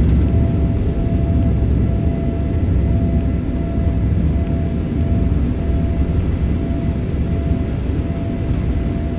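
Jet airliner cabin noise: a steady low rumble of engines and airflow heard inside the cabin, with a faint steady tone above it.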